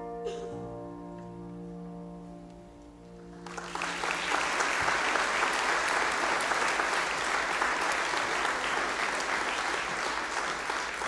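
A held chord of instrumental music fades out over the first few seconds. About three and a half seconds in, a congregation breaks into steady applause.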